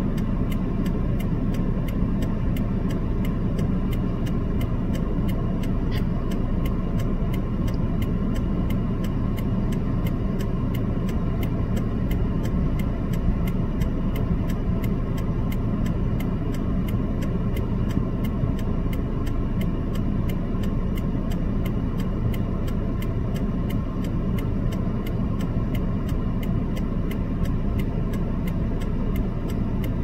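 Car engine idling steadily, with an even ticking of about three ticks a second.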